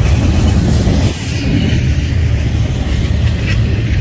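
Double-stack intermodal container train rolling past at close range: a loud, steady rumble of steel wheels on rail and well cars passing.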